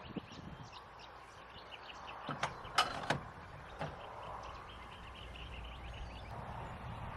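Several sharp clicks and knocks over background noise, bunched a little after the middle, then a low rumble near the end.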